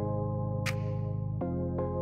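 Background music: held chords that change about one and a half seconds in, with a single bright, crisp hit a little before halfway.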